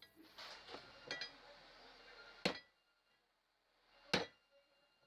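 Bearings being tapped home into a ceiling fan's metal body with a wooden block: light clinks, then two sharp knocks about one and a half seconds apart.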